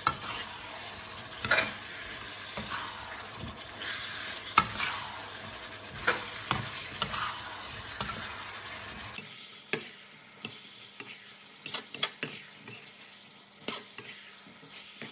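Slotted spatula scraping and knocking against a wok as chunks of beef and potato in curry paste are stir-fried, over a steady frying sizzle. The sizzle gets quieter about nine seconds in while the irregular spatula knocks go on.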